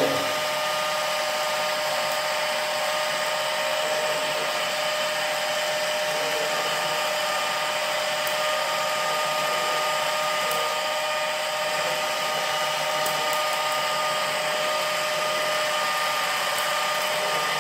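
Small 12 V DC motor of a homemade Van de Graaff generator running steadily and driving its charging belt: an even whir with a constant whine.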